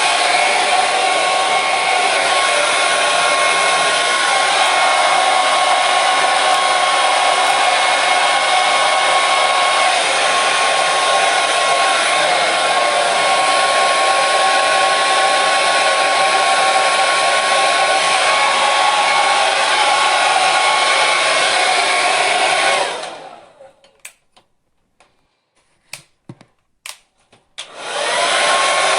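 Hair dryer running steadily: airflow hiss with a motor whine over it. About three-quarters of the way through it cuts out and winds down, a few sharp clicks sound in the near silence, and just before the end it starts up again, its whine rising as the motor spins up.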